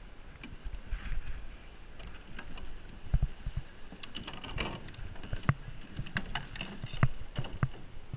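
Sculling boat under way: irregular knocks and clicks of the oars working in their gates and of the boat's fittings, over water noise, with a louder rush about four and a half seconds in.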